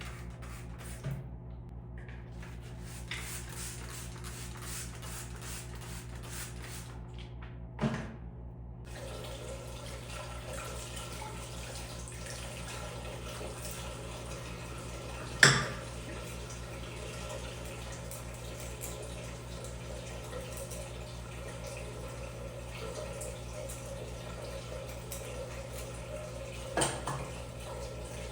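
Tap water running into a sink over a steady low hum, with three sharp knocks of things being handled. The middle knock is the loudest.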